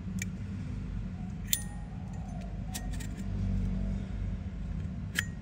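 Brass Zippo lighter lid flicked open and snapped shut, about five sharp metal clicks; one opening about a second and a half in gives a short, clear bell-like ping. A steady low hum lies underneath.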